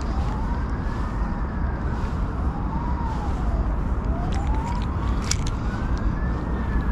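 A siren wailing, its pitch slowly rising and falling over and over, above a steady low rumble.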